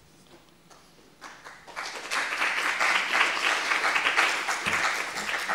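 Audience applauding in a lecture hall, starting about a second in and building quickly to full strength.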